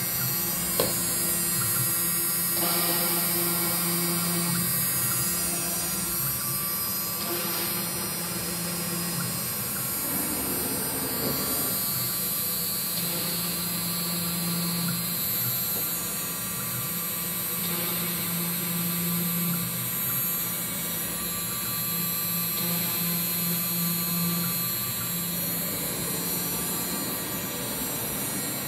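CNC router's 80 mm spindle running with a steady whine while it drills pilot holes in a fibreboard sheet, and a lower motor hum that comes and goes every few seconds as the machine moves and plunges. One sharp click about a second in.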